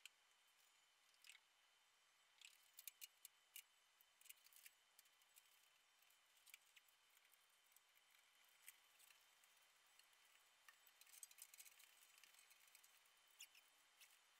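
Near silence: a faint steady high-pitched tone, with scattered faint short clicks that come thickest a few seconds in and again about eleven seconds in.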